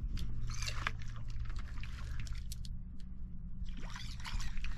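Water splashing and trickling as a hooked catfish thrashes at the lake surface while it is reeled in. The splashing grows louder in the last second or so.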